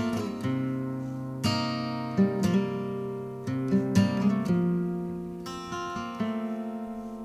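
Background music: acoustic guitar chords strummed and left to ring, a new chord every second or so.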